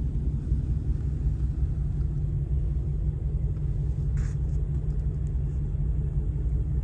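Car engines running with a steady low rumble, and a short hiss about four seconds in.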